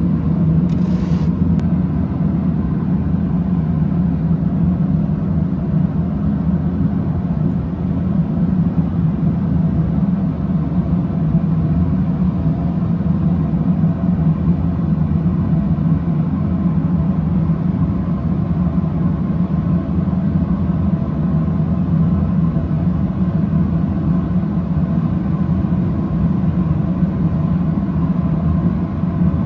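A steady low rumble of running equipment, loud and unchanging throughout.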